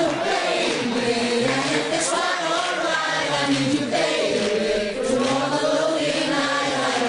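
A group of voices singing a slow melody together in unison, like a chant.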